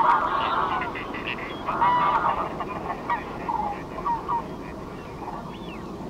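Greylag goose honking calls: a loud call at the start and another about two seconds in, then shorter, softer calls, over steady background noise.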